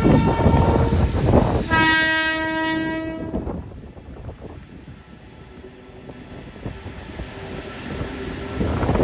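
Indian Railways electric locomotive horn sounding one long blast about two seconds in, over the steady noise of a passing train and rain. The noise then drops and a faint steady tone lingers, before rain and wind noise build again near the end.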